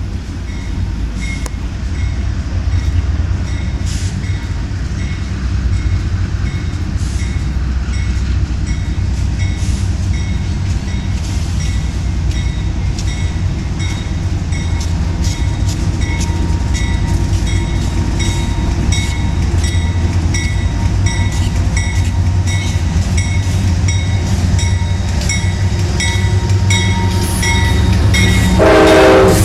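Train rolling by with a steady low rumble and a regular run of wheel clicks; a train horn starts to sound near the end.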